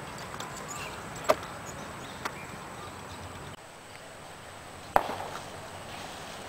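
Airsoft sniper rifles firing: a sharp shot about a second in, a fainter click a second later, and a louder shot about five seconds in, over a faint outdoor background.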